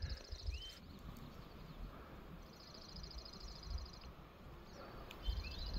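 A small bird singing a high, rapid trill three times, each trill a second or so long, with a few short rising chirps in between. A faint low rumble runs underneath and grows a little louder near the end.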